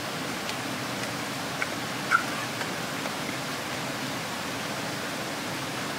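Steady rush of a rocky stream flowing nearby, with two short metallic clinks about a second and a half and two seconds in, the second the louder: a serving spoon knocking against a steel pot as curry is dished out.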